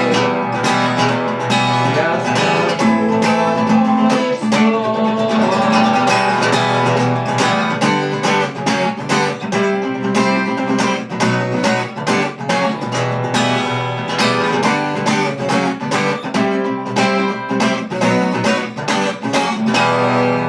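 Music played on acoustic guitar, plucked and strummed in a steady, even rhythm.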